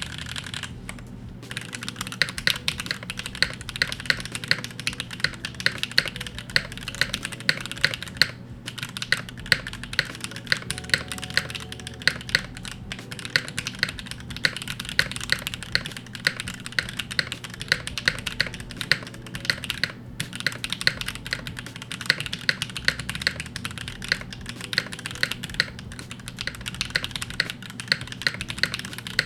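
Continuous fast typing on a BeatLab Solar80 top-mount TKL mechanical keyboard fitted with HMX Snow Crash switches: a dense run of key clacks with occasional louder strikes. The typing breaks off briefly about a second in, around 8 seconds and around 20 seconds.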